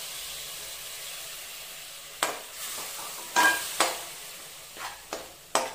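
Masala frying in a pressure cooker sizzles steadily as yogurt goes in. From about two seconds in, a metal spoon stirs it, with several sharp scrapes and knocks against the pot.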